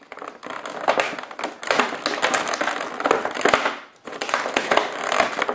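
Clear plastic clamshell packaging crinkling and crackling as hands grip it and pry it open at its corners, in two stretches with a short break about four seconds in.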